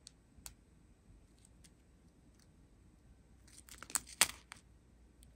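Thin clear plastic zip bags of square diamond-painting drills crinkling as they are handled, a few faint clicks at first, then a short burst of crackling about four seconds in.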